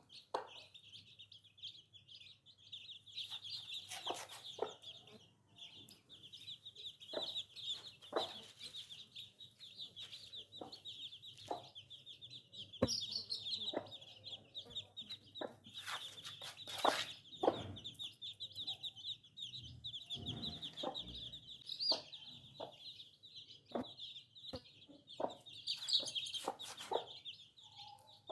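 A brood of baby chicks peeping continuously, many small high chirps overlapping into a dense chorus. Scattered short clicks and knocks sound throughout.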